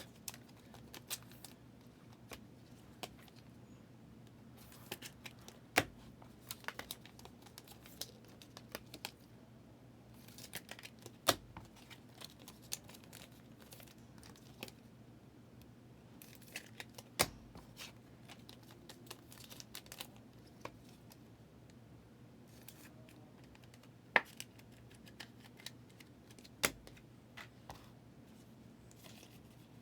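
Trading cards being handled at a table: faint sliding and rustling of cards, with several sharp clicks and taps as they are set down.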